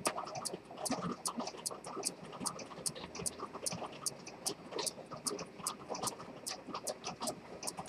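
Antique Dent fusee pocket watch with a detent chronometer escapement ticking while it runs, a steady train of sharp ticks at about five a second, over faint irregular background noise.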